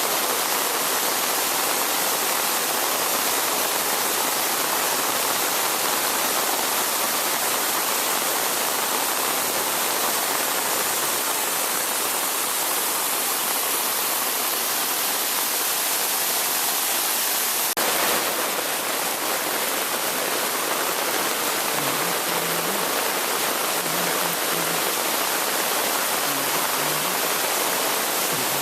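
Waterfall rushing: a steady, even noise of falling water, with a brief click about two-thirds of the way through.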